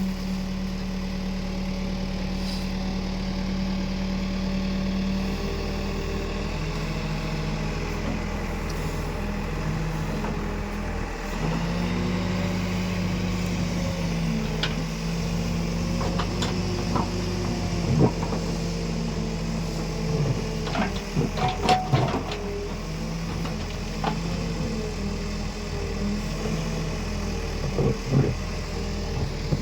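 Diesel engine of an Escorts Digmax backhoe loader running under working load, its steady note stepping up and down a few times. Several sharp knocks come in the second half.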